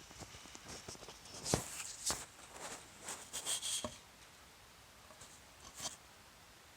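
Handling noise: scattered light clicks and rustling, busiest from about one and a half to four seconds in, with one more click near the end.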